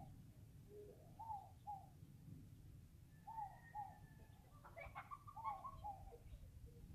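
A dove cooing faintly, a repeated two-note call that comes about every two seconds. A brief burst of higher, chirpier bird notes comes about five seconds in, over a steady low rumble.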